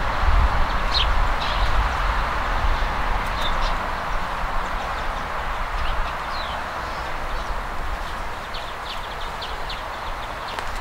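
Short, scattered chirps from a small flock of sparrows and a hawfinch at a water basin, with a quick run of them about nine seconds in. Under the chirps runs a steady hiss and a low rumble.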